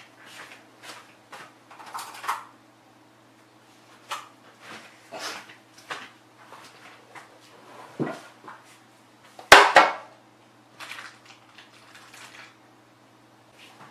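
Metal spoon and tableware handled off to the side: scattered light clicks and knocks, a thump about eight seconds in and a loud sharp clack a moment later. A faint steady hum runs underneath.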